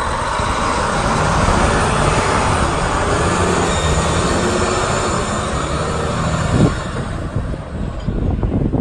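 Volvo A40E articulated dump truck's diesel engine running and drivetrain rumbling as the truck pulls past and drives away. A short knock comes about two-thirds of the way through, after which the sound drops and fades.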